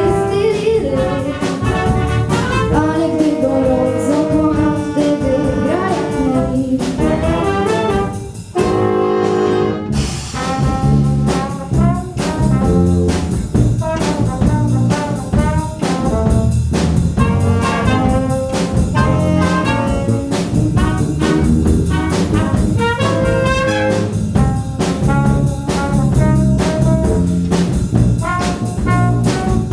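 Student jazz big band playing: clarinets, saxophone, flute, trombones and tuba over a drum kit. About eight seconds in the band holds a chord, then comes in together on a sharp hit and plays on over a steady drum beat.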